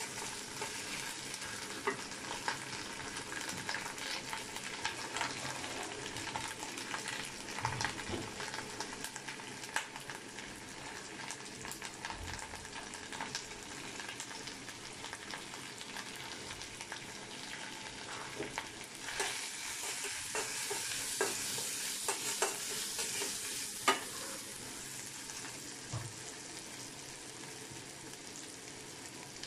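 Chopped onion, green chilli and spices sizzling in oil in a metal karahi while a metal spatula stirs and scrapes, with scattered clicks of the spatula against the pan. The sizzle grows louder for a few seconds about two-thirds of the way through, and one sharp clack of the spatula stands out late on.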